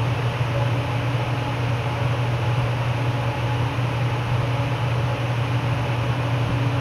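Steady low hum with an even hiss from a fan running, unchanging throughout.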